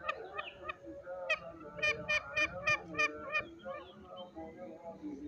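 Green junglefowl calling: three quick, short, sharp calls at the start, then a run of about seven about three a second, over fainter chirping of other birds.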